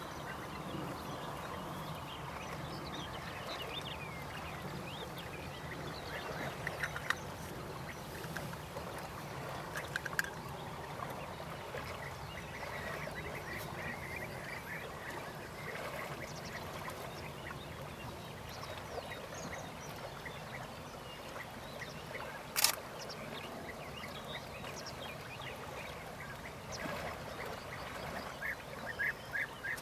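European bee-eaters calling: bursts of short rolling notes repeated in quick runs, over a steady background of bird chatter, clearest at a few moments and again near the end. A single sharp click about three quarters of the way through is the loudest sound.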